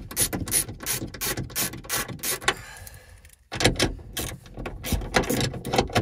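Ratchet wrench with a 13 mm socket clicking rapidly as it backs out a loosened bolt on the tailgate lock, with a brief pause about halfway before the clicking resumes.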